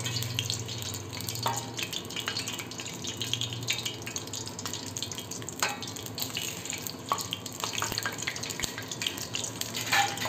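Sliced almonds, cashews and dried coconut frying in hot oil in a steel pan for a tadka: a steady sizzle with scattered crackles and a few sharper ticks.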